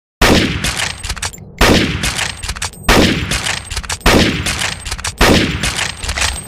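Gewehr 98 bolt-action rifle firing five shots, about one every 1.2 seconds, each shot ringing off over about a second with a few sharp clicks after it.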